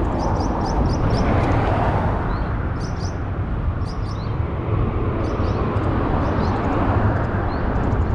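Steady rumble of highway traffic, with short high chirps repeating every second or so above it.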